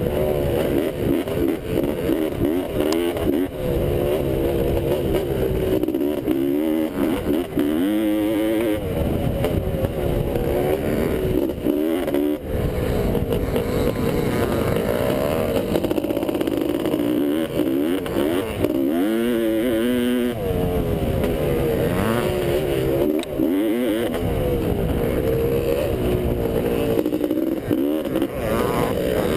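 1985 Honda CR500's 491 cc two-stroke single-cylinder engine heard from on board under hard riding, its pitch climbing again and again through the revs and dropping back briefly every few seconds as the throttle shuts and reopens.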